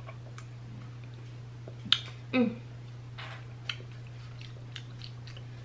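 A frappuccino being sipped through a plastic straw: small clicks and a faint slurp over a steady low hum. A short whine that falls in pitch comes about two and a half seconds in.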